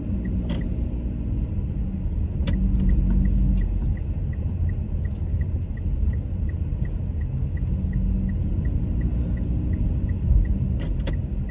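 Car engine and road rumble heard from inside the cabin as the car pulls away at low speed, with the engine note rising a little a few seconds in. A light, even ticking runs through it at about three ticks a second, and there are a few sharp clicks.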